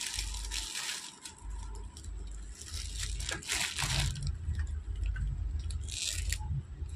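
Plastic packaging crinkling in the hands in three short bursts, over a low rumble of handling noise.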